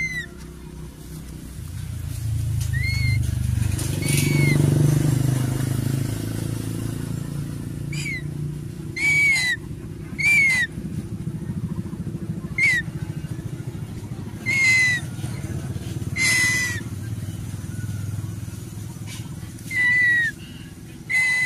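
Repeated short whistled bird calls, about a dozen spaced a second or two apart, each dropping in pitch at the end. Under them runs a low engine rumble that swells in the first few seconds and fades near the end.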